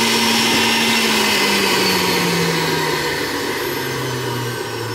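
Breville centrifugal juicer's motor spinning down after being switched off: a steady whir whose pitch starts falling about a second and a half in and keeps dropping as it slowly gets quieter.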